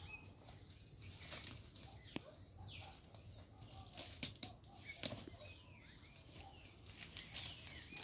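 Footsteps crunching through dry leaf litter and twigs, with scattered crackles and snaps that are loudest about halfway through. Short, high bird chirps sound now and then.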